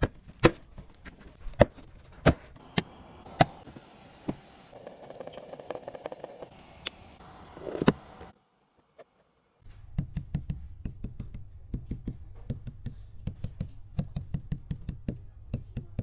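Sharp separate knocks and clicks, a few per second, then after a brief dead gap a fast, dense run of dull low taps: handwork on hard parts.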